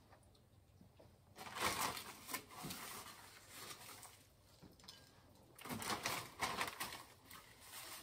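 Hands breading pork chops: rustling and patting of crushed Ritz cracker crumbs and a plastic bag. It comes in two short soft bursts about four seconds apart, with fainter handling between.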